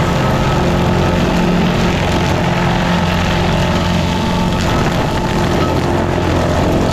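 Carlton SP6016TRX stump grinder running steadily, its engine note and the grinding noise of the cutter wheel on a stump holding at an even level.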